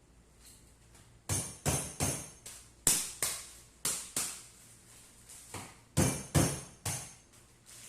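Kitchen utensils knocking and clinking, about a dozen sharp strikes in irregular groups of two or three, each with a short ringing tail.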